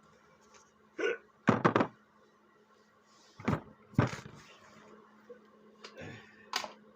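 A series of sharp knocks and clunks of hard objects being handled and set down, three in quick succession about one and a half seconds in, over a faint steady hum.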